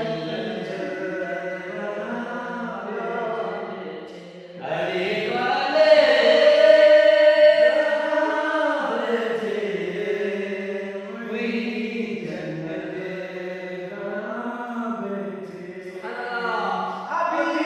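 Four men's voices chanting a manqabat, a devotional song in praise of Ali, together in long held phrases. There is a brief pause about four seconds in, then a louder held line.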